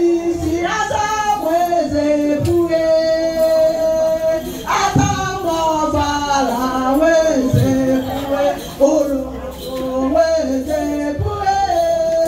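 Women's group singing a traditional Igbo egwu ndi nne song together, the melody held and swaying in long sung phrases, with a few low thumps now and then.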